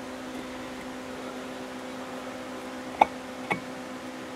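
Two light metal clicks about half a second apart, about three seconds in, as the aluminium turbo front cover is fitted against the centre housing, over a steady low hum.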